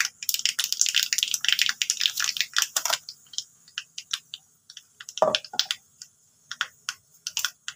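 Hot oil tempering in a small steel ladle, with mustard seeds, curry leaves and chilli spluttering: dense crackling for about three seconds, then thinning to scattered pops, with one louder, duller pop about five seconds in.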